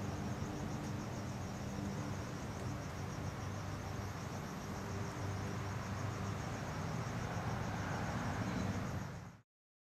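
Crickets chirping in a fast, even pulse over a steady low hum; the sound cuts off suddenly near the end.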